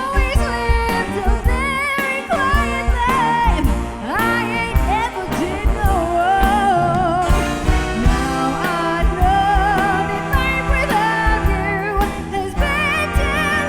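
A woman singing a soulful, drawn-out vocal line with vibrato and runs, over a band with a steady drum beat.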